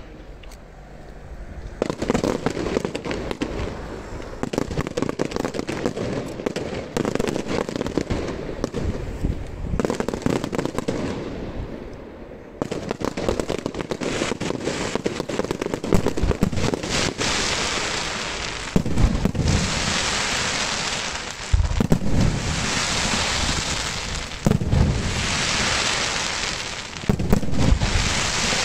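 Aerial fireworks display: a dense run of crackling pops for about ten seconds, then a series of shell bursts every two to three seconds, each a bang followed by a hissing crackle of burning stars.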